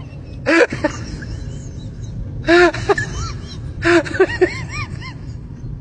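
Bursts of high-pitched laughter, each a quick run of short rising-and-falling 'ha' sounds: one about half a second in, one around two and a half seconds and one around four seconds, over a steady low hum.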